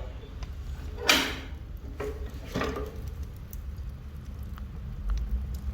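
Wood-burning stove's metal loading door being opened: a sharp clack of the latch about a second in, then a second clank or scrape a little later, over a steady low rumble.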